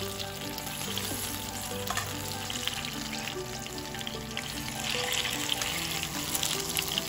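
Hot cooking oil sizzling and crackling around turon (banana spring rolls) deep-frying in a wok, with soft background music.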